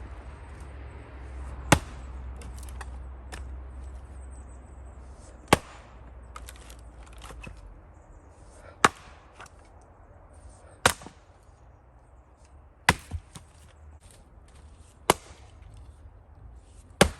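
Axe blows splitting firewood by hand: seven sharp chops, about two seconds apart.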